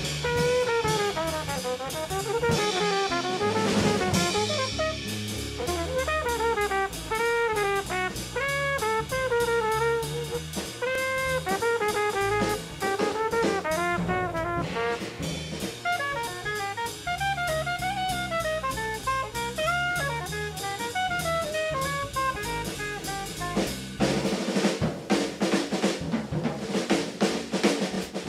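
Jazz quartet playing: a saxophone improvises a winding line over drum kit, congas and bass. About 24 seconds in the saxophone drops out and the drums carry on alone.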